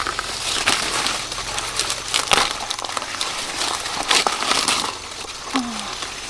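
Dry corn leaves and husks rustling and crackling while corn is being picked, with irregular sharp cracks. A short voice sound comes near the end.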